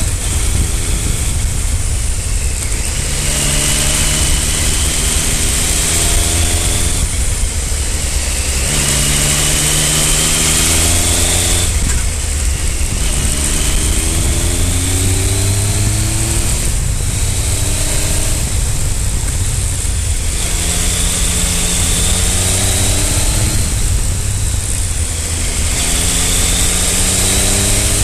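Triumph Speed Triple 955i's inline three-cylinder engine on the move, revving up through the gears: the pitch climbs for about four seconds, drops at each upshift, and climbs again, over a steady high hiss.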